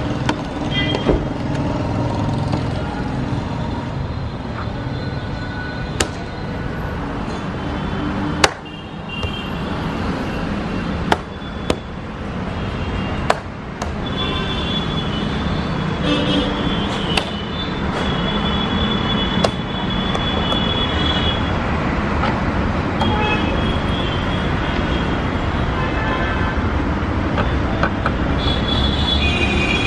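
Steady road traffic noise with occasional horn toots, broken by a handful of sharp clicks and knocks in the first two-thirds.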